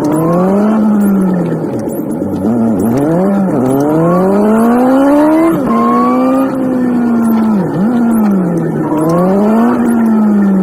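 Nissan 180SX engine running while driving, sped up to 3.5 times speed, its note rising and dropping over and over in quick swells as the car accelerates, shifts and lets off.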